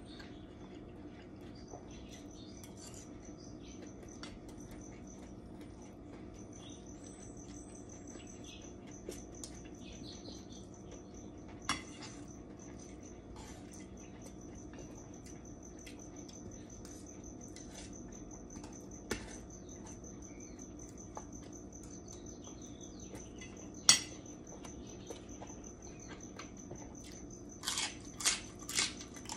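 Eating sounds at a plate: a spoon and fork click against a stainless steel plate three times, the last the loudest. Near the end comes a quick run of crisp crunches as a raw green vegetable is bitten and chewed.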